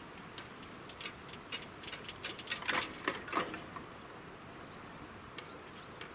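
Level crossing barrier arms rising, with scattered clicks and rattles that build to a cluster of louder knocks about three seconds in, then quieten.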